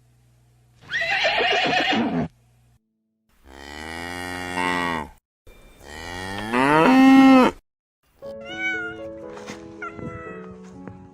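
A short rough animal call, then a cow mooing twice, the second moo rising in pitch. From about eight seconds in, light music plays with a cat meowing over it.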